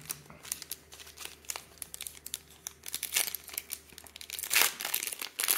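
Foil wrapper of a baseball trading-card pack crinkling as hands work it open, with scattered crackles and louder bursts of crinkling about three seconds in and near the end.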